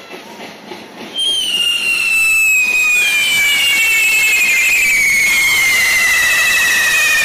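Handheld carretilles (pole-mounted correfoc fireworks) going off about a second in: a loud, steady hissing spray with a shrill whistle that slowly falls in pitch, joined by further whistles a couple of seconds later as more are lit.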